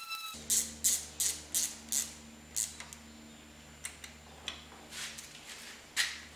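Sharp clicks and taps of a hand tool on metal: several in quick succession in the first two seconds, then a few more spaced out, as new glow plugs are fitted into a diesel engine's cylinder head. A steady low hum runs underneath.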